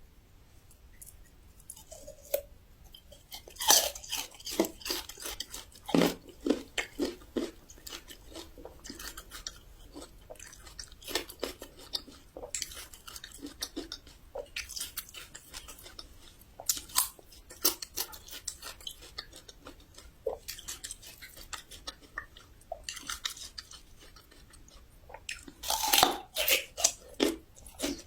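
A person biting into and chewing raw Shandong yellow ginger root, with a run of crisp crunches at each chew. The loudest bites come about four seconds in, about six seconds in, and again near the end.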